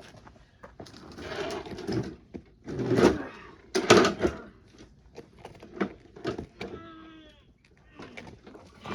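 Bumping and scraping of a lawnmower being pulled backwards by hand, in several short bursts, with its engine not running. About seven seconds in, a farm animal bleats once.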